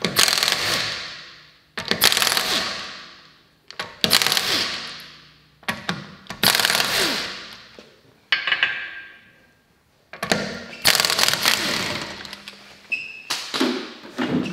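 Impact wrench undoing the wheel bolts on a VW Golf 5's rear wheel: five short hammering runs about two seconds apart, each fading away as the bolt comes loose, then a longer stretch of clatter near the end.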